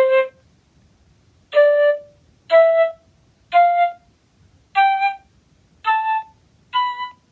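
Flute playing a rising scale: seven short, separate notes about a second apart, each a step higher than the last.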